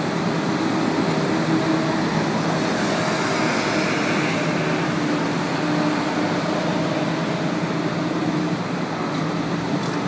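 Kobelco hydraulic excavator's diesel engine running steadily as the machine works its boom and bucket, a constant mechanical drone with faint engine tones in it.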